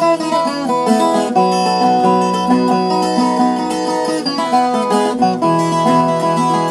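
Viola caipira, the Brazilian ten-string folk guitar, playing an instrumental moda: quick plucked melody notes over a held low drone string.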